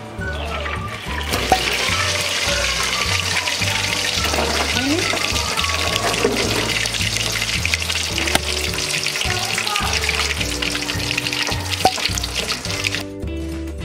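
A whole pork leg (crispy pata) sizzling and crackling in hot oil during its second deep-frying. The sizzle starts about a second in and cuts off near the end.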